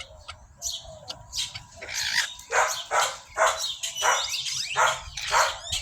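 A dog barking over and over, about two barks a second, with faint chick-like chirps from young hens among the barks.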